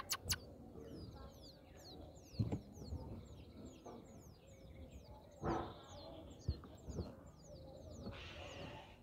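Indian Robin nestlings begging: thin, high chirps falling in pitch, repeated about three times a second. A few soft thumps and rustles come from the brooding female shifting on the grass nest, the loudest about halfway through.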